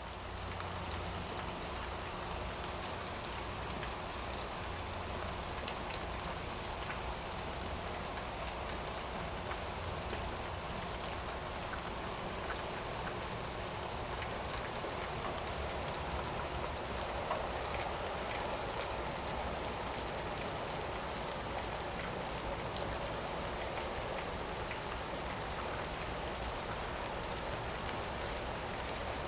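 Steady rain falling, a continuous even patter with a few louder single drops ticking now and then.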